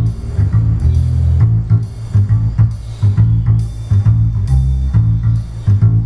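Jazzy film-noir instrumental music, a rhythmic plucked bass line with guitar and light percussion, played through a pair of small DIY two-way speakers with 3.5-inch Dayton Audio ND90 aluminium-cone drivers.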